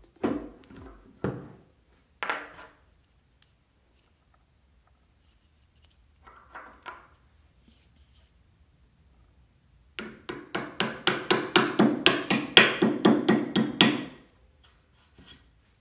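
Claw hammer knocking a plastic cap onto the end of a steel unistrut leg. There are three single knocks, then after a pause a quick run of taps, about five a second for some four seconds, each with a short ring.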